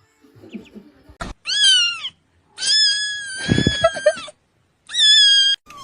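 A cat meowing three times, high-pitched: a short meow that rises and falls about a second in, a long drawn-out meow, and a short one near the end. Low thumps sound under the long meow.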